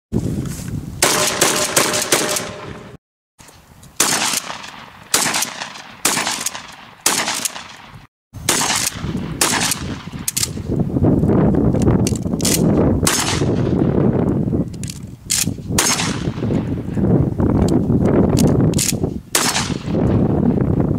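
Shotgun fired again and again in quick strings, each shot ringing out after the blast, with two short breaks of silence in the first half.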